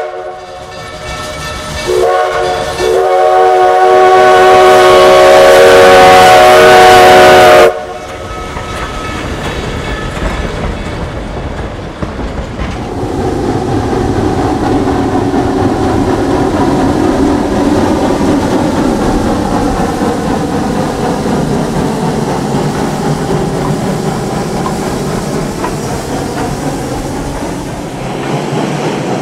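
Steam locomotive's chime whistle sounding several notes at once: a short blast, then a long, loud blast that cuts off sharply. Then the train rolls past with a steady rumble and clickety-clack of wheels on rail joints.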